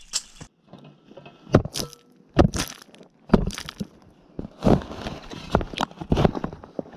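Metal spade being driven into earth and levering it loose: a series of about ten sharp, gritty crunches and scrapes as soil and small roots break.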